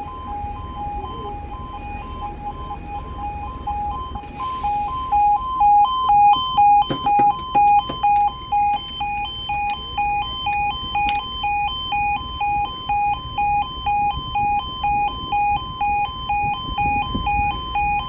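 Level crossing yodel alarm: two tones, one lower and one higher, alternating about twice a second. About five seconds in it gets louder and shriller, with a few sharp clicks around seven and eleven seconds. It warns road users that the barriers are lowering for an approaching train.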